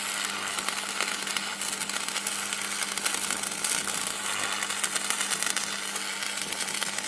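Electricity sound effect: a steady crackling, sizzling buzz of electric arcing, with a constant hum underneath.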